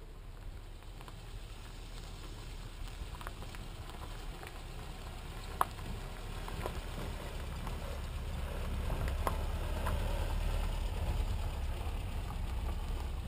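Small pickup truck driving slowly up a dirt road, its low engine rumble growing steadily louder as it approaches, with tyres crackling over gravel and one sharp click about five and a half seconds in.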